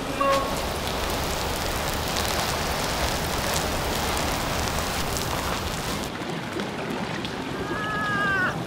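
River water washing against a crumbling mud bank: a steady rushing, hissing noise with faint crackles, turning duller about six seconds in.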